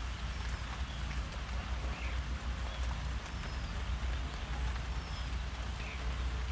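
Steady rain falling, an even hiss, with a low rumble underneath and a few faint short high chirps now and then.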